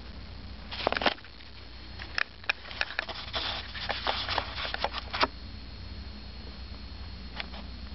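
A kitten moving about on a person's lap: soft rustling and quick scratchy clicks from fur, claws and denim, in a burst about a second in and a busier stretch from about two to five seconds, then quieter.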